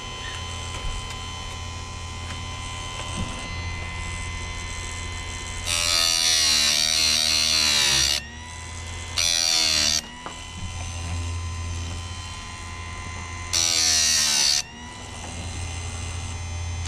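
Electric bench-mounted chainsaw chain sharpener grinding a dull chain. The motor hums steadily, and three times the spinning wheel is lowered onto a cutter tooth with a loud hissing grind. Each grind is a couple of seconds or shorter, and the motor's pitch sags under the load, then recovers.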